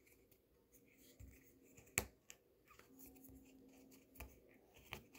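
Faint handling of a plastic Play-Doh tub as the dough is pried out of it: a few sharp clicks and taps, the sharpest about two seconds in, over near silence.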